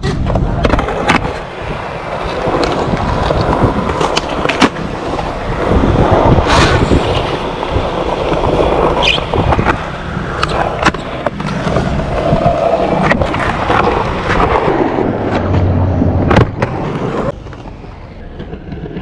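Skateboard wheels rolling over concrete, a continuous rough rumble, broken by several sharp clacks of the board popping and landing.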